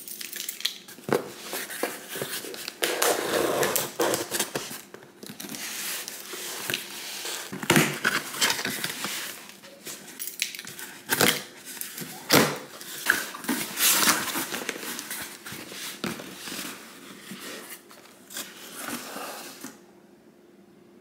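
A taped cardboard shipping box being opened by hand: packing tape ripped off and the cardboard flaps and packaging pulled, crinkling and knocking, in irregular bursts of tearing and scraping.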